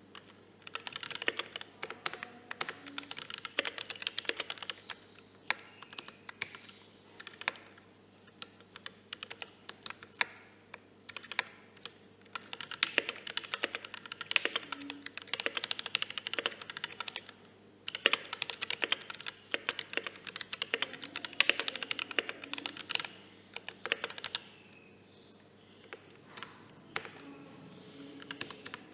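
Typing on a Tofu65 65% mechanical keyboard with lubed and filmed T1 switches and cherry-profile keycaps: fast runs of keystrokes in several bursts, with slower, single key presses between them.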